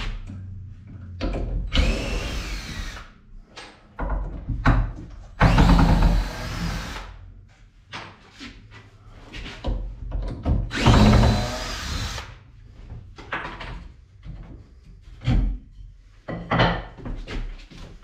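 Cordless drill driving screws into a softwood timber frame: three runs of about a second and a half each, the first with a rising whine, with short knocks of wood being handled between them.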